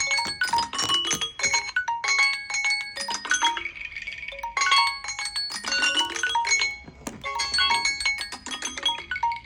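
Samsung Galaxy phone alarm and timer tones ringing: a bright electronic melody of short, bell-like chiming notes in quick succession. It thins out briefly about four seconds in and again about seven seconds in.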